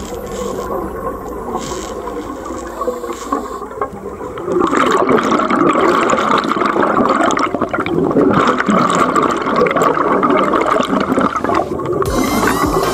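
Underwater bubbling of rising air bubbles, growing louder and denser about four and a half seconds in.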